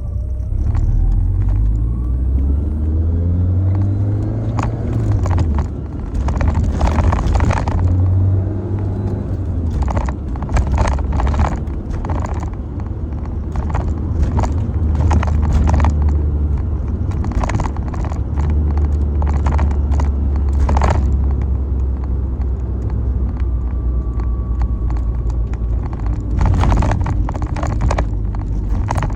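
Lancia Delta HF Integrale Evoluzione I's turbocharged four-cylinder engine pulling while driving, its pitch rising over the first few seconds and then dropping, then shifting up and down several times through the gears. Frequent short clicks and knocks come through over the engine drone.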